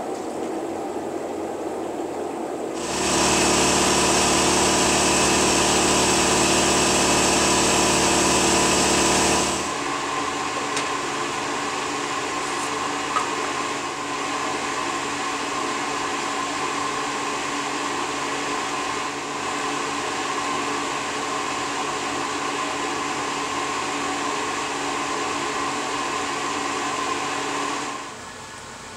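Steady machine hum. It steps up louder about three seconds in, switches abruptly to a different steady hum near ten seconds, and drops away near the end.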